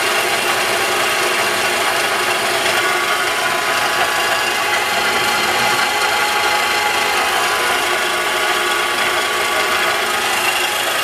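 CNC milling machine running, its spindle cutter etching into a piece of wood: a steady, unbroken noise with several faint steady tones in it.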